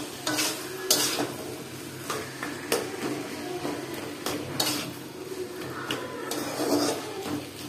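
Metal spatula stirring and scraping taro leaves frying in a heavy black iron karahi, with irregular scrapes and clinks against the pan over a low sizzle.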